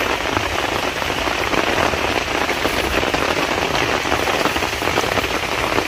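Steady rain falling, a dense hiss of countless small drop impacts.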